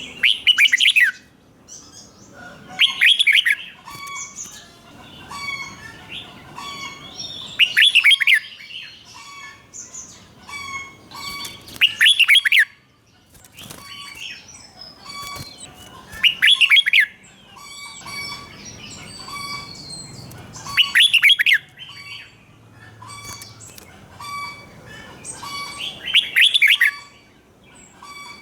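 Red-whiskered bulbul singing: loud, quick song phrases of about a second each, repeated about every four to five seconds, with softer chirps in between.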